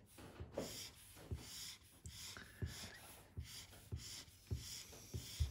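Purple chisel-tip highlighter scribbling back and forth on paper as an area is coloured in. It makes a faint, scratchy stroke about every half second or so, each with a soft tap of the tip.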